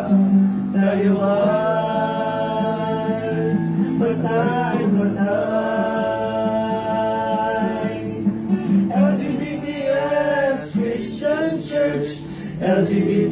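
A hymn sung by men's voices with acoustic guitar accompaniment, in long held notes.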